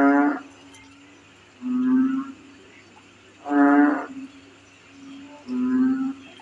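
Two frogs calling in turn at night, each giving a short, low, moo-like call about every two seconds, four calls in all, one voice plainer and one richer in overtones. A faint steady high chirring of crickets runs underneath.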